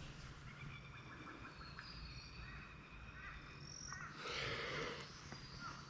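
Faint bush ambience of birds calling, in short high whistles, with a brief rush of noise about four seconds in.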